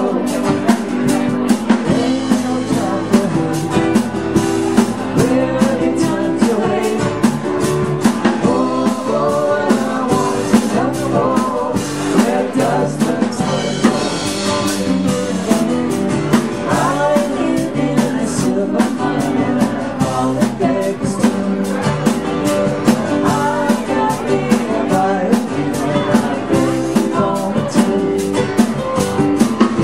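Live band playing a song: a woman singing lead over acoustic and electric guitars, with drums keeping a steady beat.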